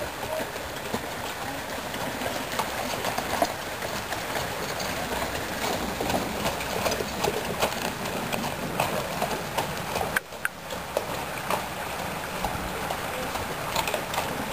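Hooves of a horse pulling a carriage clip-clopping along a gravel carriage road, in a quick uneven patter of strikes. There is a brief break about ten seconds in.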